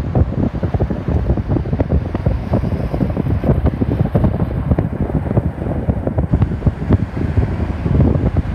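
Wind buffeting the microphone: a loud, gusty low rumble made of rapid, irregular thumps.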